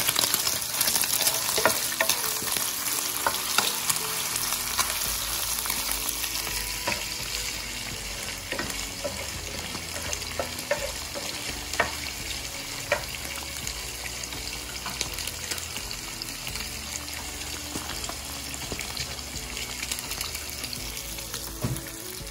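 Strips of meat sizzling in a frying pan as they are stirred with a wooden spatula, which clicks against the pan now and then, with battered fish fillets deep-frying in hot oil in a second pan. The sizzle is loudest in the first few seconds, then settles.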